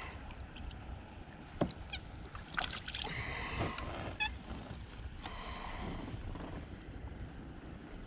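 Water splashing and handling knocks as a red-spotted grouper (akou) is lifted from the sea onto a kayak. There is a sharp click about a second and a half in and a quick rattle of ticks around the middle.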